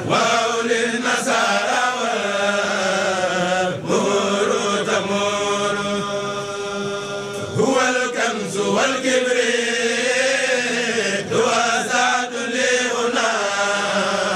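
Voices chanting Arabic devotional verse in the Mouride khassida style, in long melodic lines with a note held for a couple of seconds around the middle.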